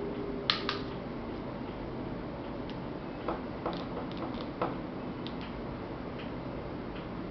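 A few sharp small clicks and taps from handling the retractable charging cable's connector and the phone, over faint, spaced ticking and a steady low room hum.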